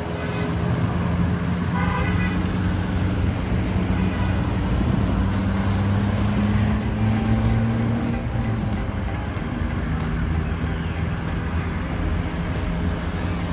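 Road traffic: a vehicle engine running steadily, with a brief horn toot about two seconds in.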